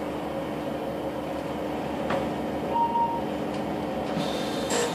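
Inside a standing Class 156 diesel multiple unit: the underfloor diesel engine idles with a steady hum. A short beep sounds about three seconds in, and a few sharp clicks follow toward the end.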